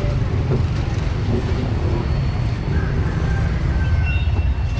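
Steady street traffic: a continuous low rumble of car and motorbike engines passing close by.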